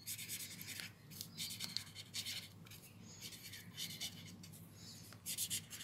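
Pen nib scratching across lined paper as words are written by hand, in short runs of strokes with brief pauses between words.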